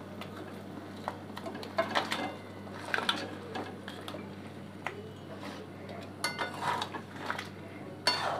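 Spatula scraping and clinking against a metal kadai as fried prawns are tipped into thick gravy and stirred, in a string of short, uneven knocks. A steady low hum sounds underneath.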